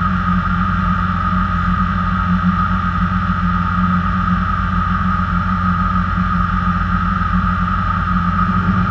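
Off-road race truck's engine idling steadily, heard from inside the cab, with a steady high whine over it.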